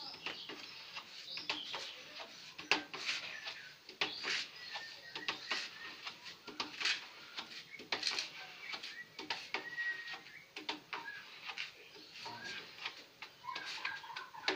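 A hand-held sponge rubbing back and forth over a wooden cabinet top in short, irregular strokes, with birds chirping now and then.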